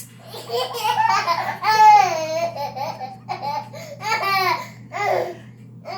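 A girl laughing in a string of high-pitched bursts, her pitch sliding up and down, with a steady low hum underneath.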